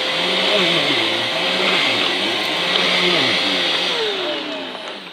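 Hoover Blaze upright vacuum cleaner running with a steady motor whine and rushing air; about four seconds in the motor's pitch falls and the sound fades as it winds down.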